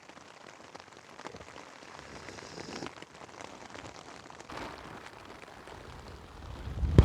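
Rain pattering on a tarp shelter, a steady hiss dotted with many small drop ticks. Near the end a low rumble builds and the sound gets louder, ending in a sharp knock.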